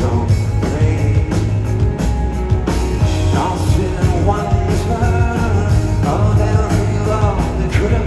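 Rock band playing a song live: electric guitar, bass guitar and drums with a singing voice, heard from the audience in a large concert hall.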